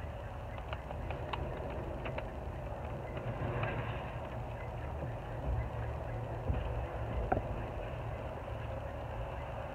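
A plastic squeegee scraping over vinyl film and the big vinyl sheet and its paper backing rustling as they are handled, with scattered light clicks, over a steady low outdoor rumble.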